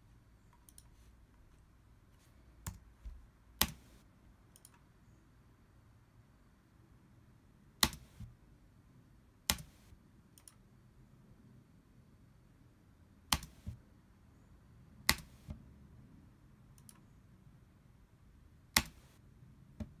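Computer mouse clicks: about seven sharp single clicks spaced a few seconds apart, several followed by a softer second click from the button's release, over a faint low hum.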